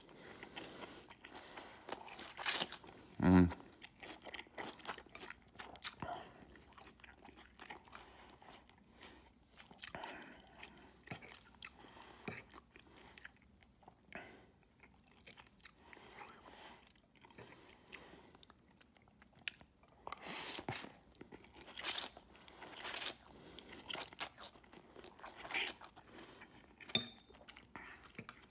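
A person chewing mouthfuls of tuna and lemon linguine close to the microphone, with wet smacks and short crunches, and a fork scraping and clicking on the plate as it twirls the pasta.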